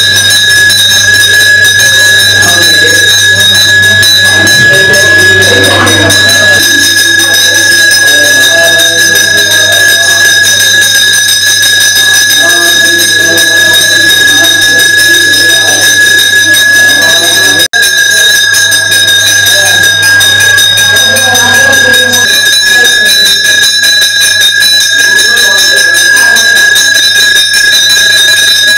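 A brass hand bell (ghanta) rung without a break, a steady fast ringing, over people's voices. The sound drops out for an instant about two-thirds of the way through.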